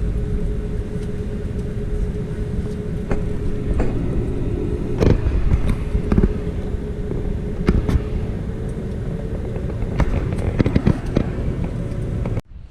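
A vehicle running: a steady low rumble with a steady hum, and scattered clicks and knocks.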